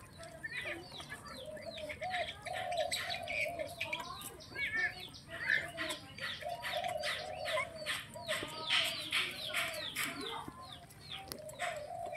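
Several puppies whining and squealing at feeding time: a busy chorus of short, high squeaks that fall in pitch, coming fastest, about three a second, a little past the middle, over lower wavering whines.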